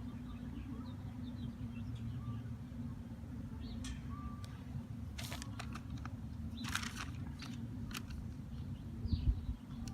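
Steady low hum with a handful of sharp clicks and rattles in the middle, two faint short chirps, and a dull thump near the end.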